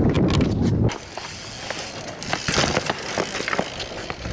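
A low rumble of wind and rolling for about the first second, then a quieter run of irregular clicks and knocks from a BMX bike rolling and rattling on concrete.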